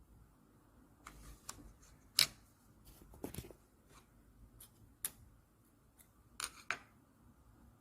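Irregular sharp clicks and light taps of small Swiss Army knife tool parts being handled and fitted together during assembly, the loudest click about two seconds in.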